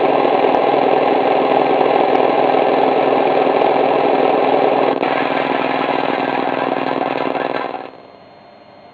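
An engine running steadily, a little quieter about five seconds in, then cutting off suddenly near the end, leaving only a faint hiss.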